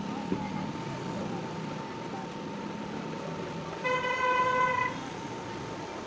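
A horn sounds once for about a second, about four seconds in, as a steady single note over a steady background hum.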